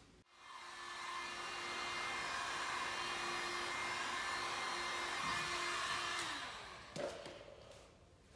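A small handheld electric blower motor starts up, runs with a steady hum and rushing air for about six seconds, then winds down. A short sharp knock comes about seven seconds in.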